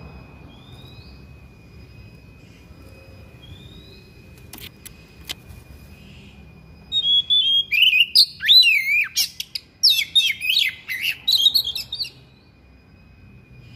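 Oriental magpie-robin singing a loud, varied burst of quick whistles and chirps for about five seconds, starting about halfway through. Before the song there is only a faint steady high tone with a few soft chirps and two clicks.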